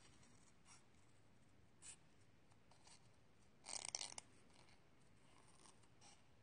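Small scissors cutting through watercolor paper: a few faint, scattered snips, the most noticeable a short cut lasting about half a second around four seconds in.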